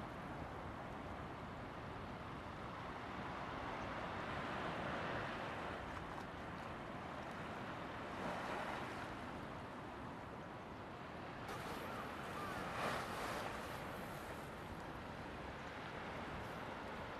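Small waves washing up and running back over a sandy shore, a steady surf hiss that swells and eases, with some wind on the microphone.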